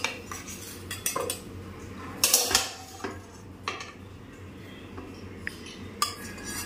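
Steel spatula scraping and clinking against a steel kadhai and a small steel tiffin bowl as pasta is scooped across, in irregular knocks and scrapes, the loudest about two and a half seconds in.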